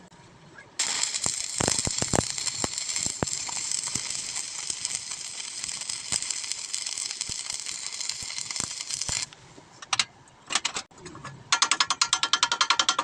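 Welding arc hissing and crackling steadily for about eight seconds, then cutting off; a few short bursts follow, and near the end a fast regular clicking starts, about ten a second.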